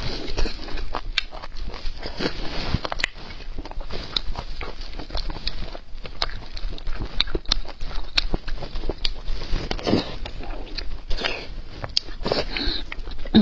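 Close-miked eating of red-braised beef bone marrow: biting and chewing in many short bursts, with small sharp clicks scattered through.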